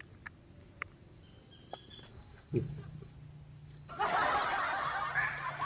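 Quiet at first, with a few faint short clicks. About four seconds in, a louder noisy outdoor ambience starts, with men chuckling and laughing softly.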